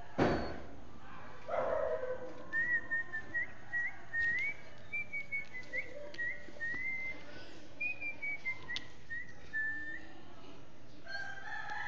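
Whistling: a run of short, high notes that hop up and down in pitch, several flicking upward, after a single thump right at the start.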